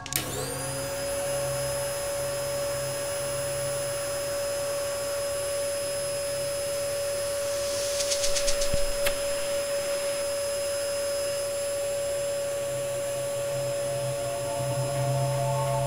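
Cylinder vacuum cleaner switched on, its motor spinning up with a rising whine in the first second, then running steadily with a high, even whine. About eight seconds in there is a brief rapid rattle, followed by a sharp click.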